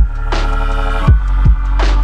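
Electronic background music: a deep steady bass, punchy kick-drum beats and long hissing snare-like hits.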